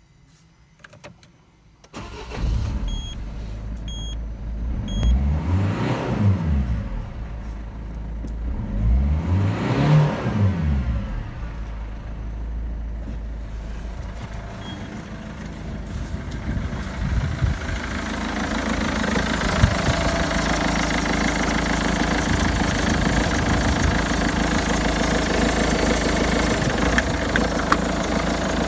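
Citroen Berlingo 1.6 HDi four-cylinder turbodiesel (9HW / DV6BTED4) starting about two seconds in, with three short dashboard warning beeps just after. It is revved twice, each rev rising and falling away, then settles to a steady idle. The idle grows louder and fuller past the middle as it is heard from the front of the van.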